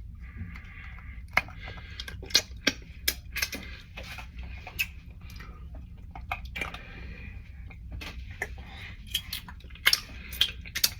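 Kitchen utensils and dishware clicking and tapping in irregular sharp knocks as the last buffalo wing is handled, over a low steady hum.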